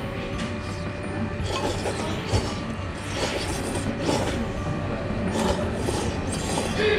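Udon noodles being slurped from a bowl in several short, hissing pulls.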